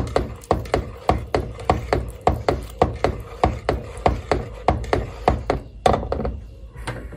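Whisk with black coated wires knocking against the side of a coated cooking pot while whisking a thick custard mixture, a quick even rhythm of about three strokes a second. The knocking stops about six seconds in.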